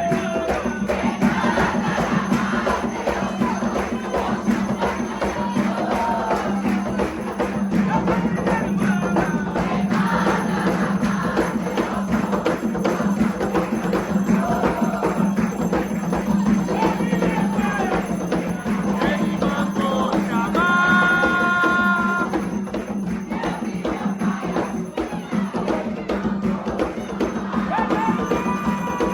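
Umbanda devotional music: voices singing a chant over steady, continuous hand percussion, with one longer held note about two-thirds of the way through.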